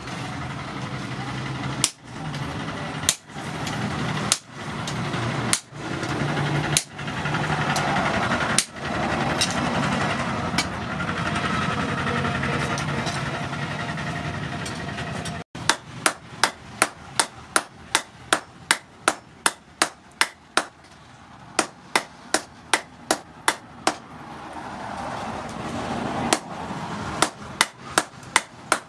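Hand hammer striking hot rebar on an anvil. Single blows about a second apart over a steady hum, then, about halfway through, fast runs of blows, about three a second, with short pauses between runs.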